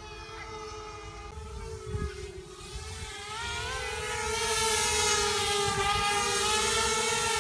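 Minion 220 mini quadcopter's four brushless motors and propellers buzzing in flight: a steady whine whose pitch wavers with throttle. It grows louder about four seconds in.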